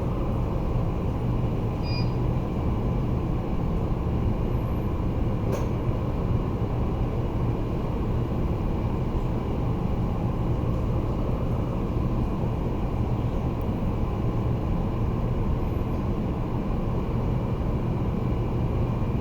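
Steady low droning hum and rumble of background machinery, unchanging throughout, with one faint click about five and a half seconds in.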